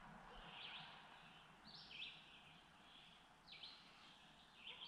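A bird singing faintly in short high phrases, one every second or so, over the quiet hush of the forest.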